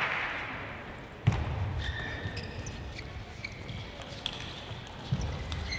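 Table tennis match sounds between points: a hiss that fades over the first second, a low thud about a second in and another near the end, and short high squeaks in between.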